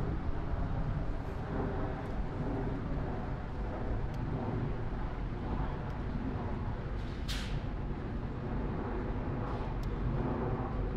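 Outdoor city ambience: a steady rumble of traffic with faint voices of passers-by, and a short rising hiss about seven seconds in.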